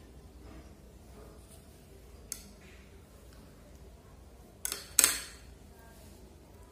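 Kitchen knife knocking against a serving tray as set agar fruit jelly is cut into pieces: a light click a little past two seconds, then a louder sharp double knock about five seconds in.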